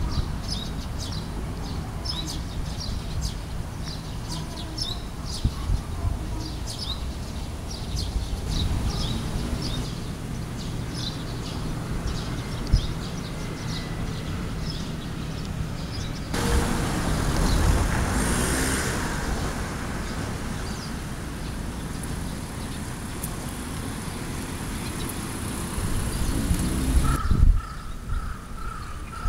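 Outdoor town ambience: a steady rumble of traffic and wind on the microphone, with small birds chirping for the first eight seconds or so. A vehicle passes, louder, about two-thirds of the way through, and near the end, after an abrupt change, crows caw repeatedly.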